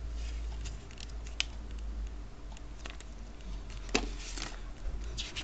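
Paper and cardboard handling: an instruction booklet and a small paper card rustling as they are held and pulled from a cardboard box. Scattered short rustles and clicks, with a sharper snap about four seconds in, over a low steady hum.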